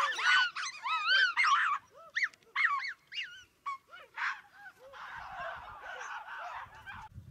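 Gelada baboons calling: a burst of many short, high-pitched, arching squeals overlapping in the first two seconds, then scattered single calls, and a denser chatter of overlapping calls from about five seconds in until near the end.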